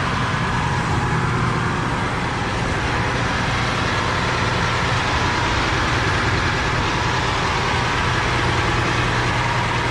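Rear-mounted 450-horsepower Cummins diesel engine of a motorhome running steadily on high idle, a loud even drone with no change in speed.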